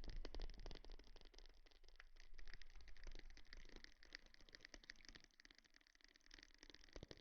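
Quiet, close-miked ASMR rustling: a dense run of quick crackles and scratches, fading lower in the second half.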